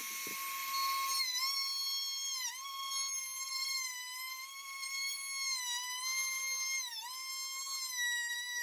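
Wood router with an ogee bit running at high speed, a steady high whine that dips briefly in pitch a few times as the bit cuts into the walnut, most clearly about two and a half, three and seven seconds in.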